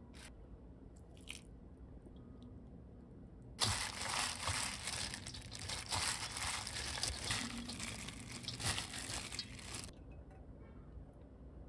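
Hand in a thin plastic glove tossing and massaging seasoned blanched perilla shoots in a stainless steel bowl: crinkling plastic and squishing greens, starting about three and a half seconds in and lasting about six seconds.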